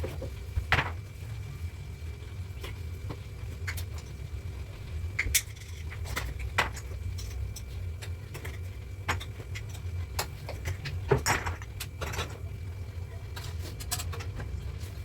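Scattered sharp clinks and knocks, like a metal utensil against a pan, over a steady low rumble.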